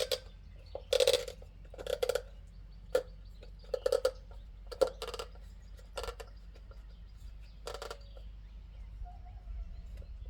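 Irregular clicks and knocks of plastic parts being handled as a new cartridge oil filter element is slid onto its filter housing cap.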